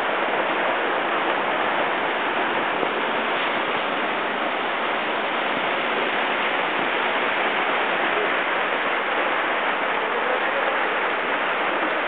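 Waterfall pouring close by: a steady, unbroken rush of falling water.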